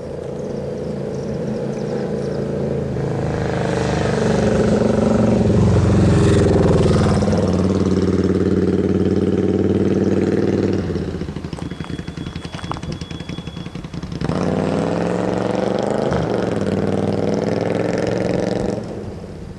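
An engine running close by, its pitch sliding up and down as it revs, loudest about six seconds in. It drops away suddenly about eleven seconds in, with a faint steady high tone in the lull, comes back about three seconds later and falls off near the end.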